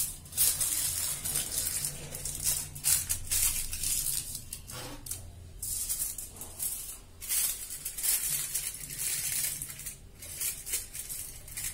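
Aluminium foil crinkling and rustling in irregular bursts as sheets of it are scrunched, pressed and folded tight around the rims of small clay pots.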